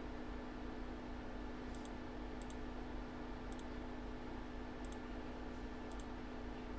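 A handful of faint, sharp clicks, spaced irregularly about a second apart, over a steady low electrical hum and room noise.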